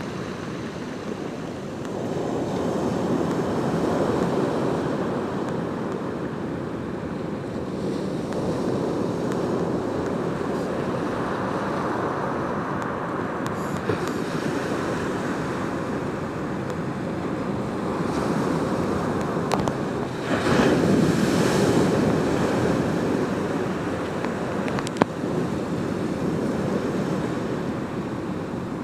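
Ocean surf breaking and washing up a gravel beach around rocks: a continuous rush of waves that swells and ebbs, with the biggest surge about three-quarters of the way through.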